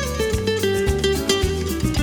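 Background music: a guitar piece in a flamenco style, with plucked notes over a steady low accompaniment.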